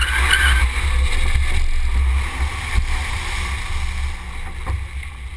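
Wind rumbling on the microphone of a camera mounted on a moving car, with the hiss of tyres spraying through standing water. It eases off over the last couple of seconds.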